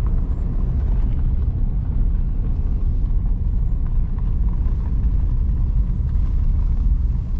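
Steady low rumble of a vehicle driving slowly, engine and road noise heard from inside the cab.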